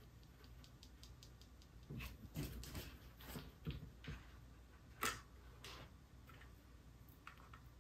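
Homemade static grass applicator, a plastic jar of static grass on a fly-zapper, shaken over a glued foam edge: a few seconds of irregular rustling and plastic knocking, with the sharpest knock about five seconds in. Faint regular ticks before and after the shaking.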